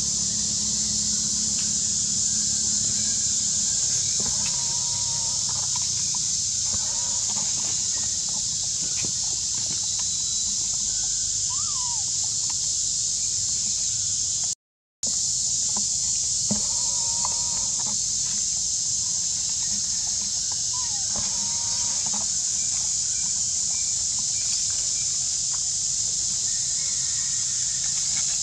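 Steady high-pitched forest drone, with a few faint short animal calls scattered through it. The sound cuts out completely for a moment about halfway.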